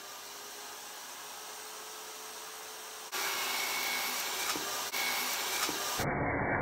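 Table saw running, a steady whir of motor and spinning blade, which gets louder about three seconds in.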